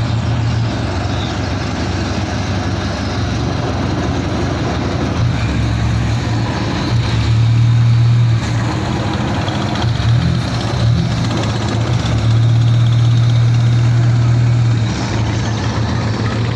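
Wooden pompong motorboat's inboard engine running with a steady low hum, pushing the boat along; the engine grows louder twice, about seven seconds in and again about twelve seconds in, as the throttle is opened.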